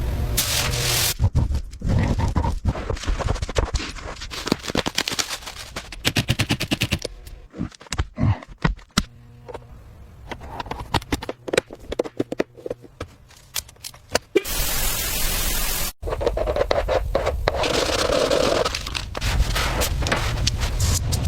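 Irregular scraping and rapid knocking from work on the car, with a steady hiss lasting about a second and a half roughly two-thirds of the way in.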